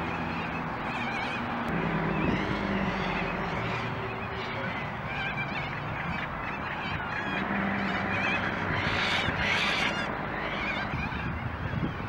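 Outdoor chorus of birds calling and chattering over steady background noise, with a louder harsh call about nine to ten seconds in.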